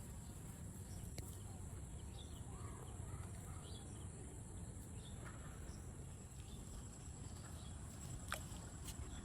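Insects, likely crickets, trilling steadily at a high pitch over a low rumble, with one sharp click a little after eight seconds in.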